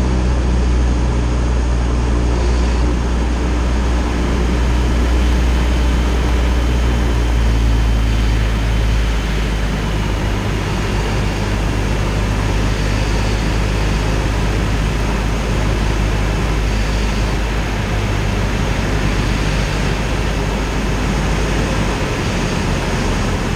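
Single-engine propeller airplane heard from inside the cockpit: a steady engine and propeller drone with rushing air. The low engine note drops slightly about nine seconds in.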